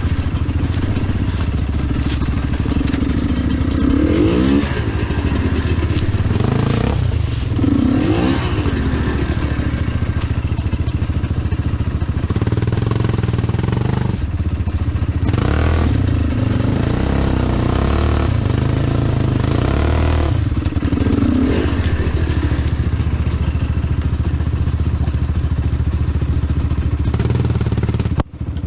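Enduro dirt bike engine running with the throttle opened and closed over and over, its pitch rising and falling, with knocks and clatter from the bike on rough trail.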